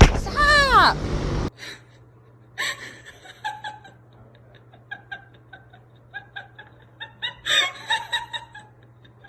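Quiet laughter in short, rhythmic breathy bursts, with a louder laugh near the end, after a shouted "Stop" that cuts off abruptly.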